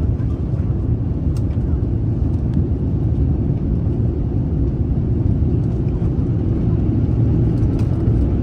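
Steady low rumble of jet engines and rushing air inside the cabin of an Airbus A350-900 airliner in flight.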